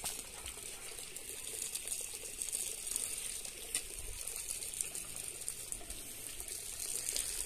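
Garden hose with a spray nozzle spraying water steadily over plants.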